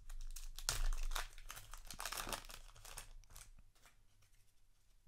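Foil trading-card booster pack wrapper crinkling and tearing as it is handled and torn open, in irregular rustling bursts that fade to quieter handling near the end.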